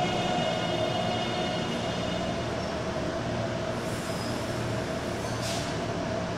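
Taipei MRT Bannan line metro train braking into the station, its running noise and a steady whine slowly fading as it slows almost to a stop. A short hiss about five seconds in.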